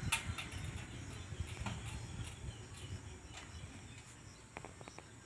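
Faint outdoor sound of roofing work: a sharp knock at the start and a few lighter knocks after it, over a low rumble. A quick run of short chirps or ticks comes about four and a half seconds in.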